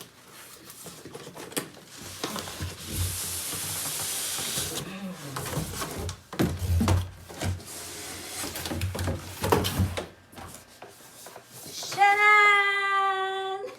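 Cardboard box and packaging being opened and handled to unpack a robot vacuum: rubbing and scraping with a few dull thumps.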